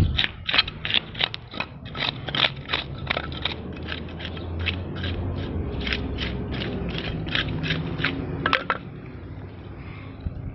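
Scales being scraped off a large carp with a hand scaling tool: a quick series of sharp rasping strokes, about three or four a second, over a low hum. The strokes stop near the end.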